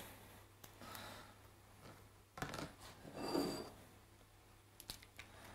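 Faint handling of a hen's egg: a short shell crack about two and a half seconds in, then soft rubbing and scraping of the shell halves as the yolk is separated from the white.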